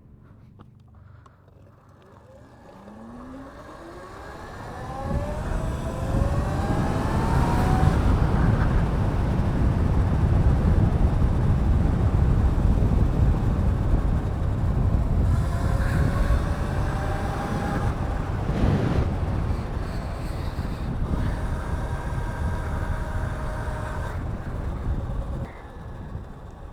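Electric motor of a Razor e-bike modded with a 5 kW Hotpaxx kit, whining as it accelerates: the pitch climbs steeply over a few seconds, then holds at speed. Wind rushes loudly on the microphone through most of the ride and drops off near the end as the bike slows.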